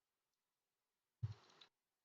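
Near silence: room tone, broken a little over a second in by one brief faint sound.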